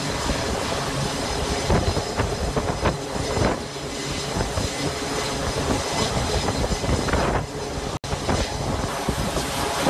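Steady rush of wind buffeting a microphone on an aircraft carrier's flight deck under way, a dense rumbling noise with no clear tone. The sound cuts out for an instant about eight seconds in.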